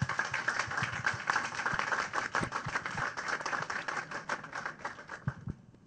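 An audience applauding, the clapping dying away near the end.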